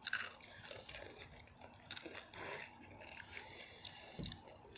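Close crunching and chewing of Takis rolled corn tortilla chips, in irregular crisp crackles, the sharpest just after the start and about two seconds in.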